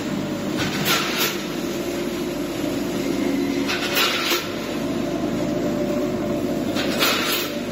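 Automatic pouch packing line with a multihead combination weigher running: a steady machine hum with pairs of short bursts about every three seconds as the machine cycles.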